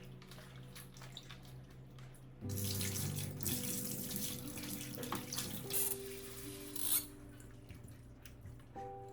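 Tap running into a sink for about four and a half seconds, starting a couple of seconds in and shut off about seven seconds in, with a brief louder splash just before it stops. Soft background music plays underneath.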